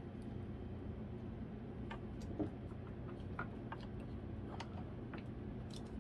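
Scattered faint clicks and ticks, about seven at irregular spacing, as the 3D-printed plastic robot dog is handled, over a low steady hum.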